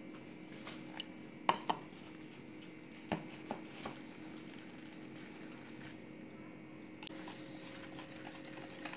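Wire whisk stirring thick gram-flour (besan) batter in a plastic bowl, with a few sharp clicks of the whisk against the bowl, the loudest two close together about a second and a half in.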